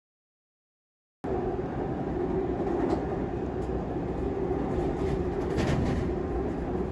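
Steady rumble and hiss of a moving vehicle heard from inside, cutting in abruptly a little over a second in after dead silence.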